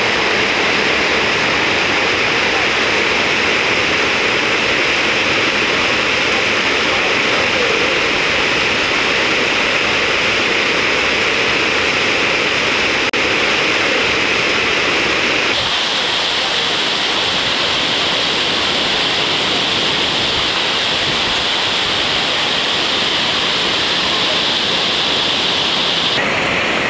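Steady rush of falling and flowing water from a small waterfall and river cascades. The rush turns brighter and hissier a little over halfway through.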